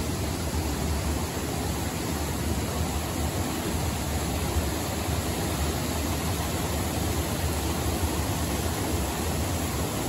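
Water rushing steadily over a small concrete weir into a stream that is running high after heavy rain.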